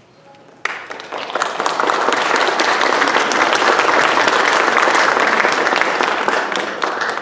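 Audience applauding. It starts suddenly, swells to full strength and holds steady, tapering off near the end.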